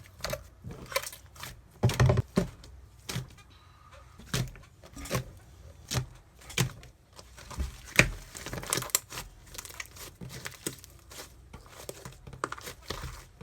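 Slime being squished and worked, making a busy run of irregular sticky clicks and pops, with the loudest ones about two and eight seconds in.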